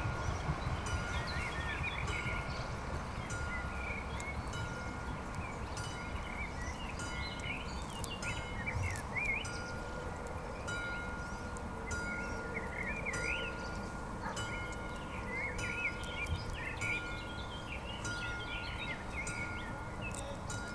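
Electronic warning bell of an AŽD 71 level crossing ringing a steady, evenly repeating single-pitched ding, sounding while the barriers stay closed, with birds chirping.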